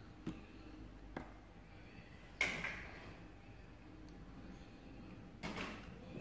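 Faint room tone broken by two light clicks and two short rustling or scraping noises, the louder one about two and a half seconds in.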